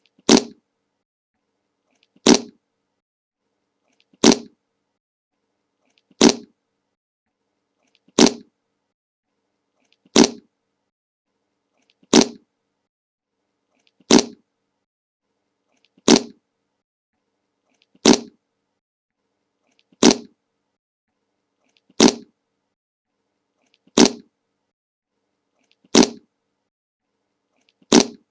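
The 'Le Monke' meme fart sound effect played on a loop: one short, identical fart about every two seconds, with dead silence between.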